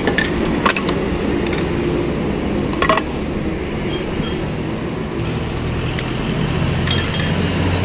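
Sharp metal clinks and knocks, about five in all, as parts of a dismantled auto-rickshaw gearbox and its casing are handled. Behind them runs a steady low rumble like passing traffic, growing louder in the second half.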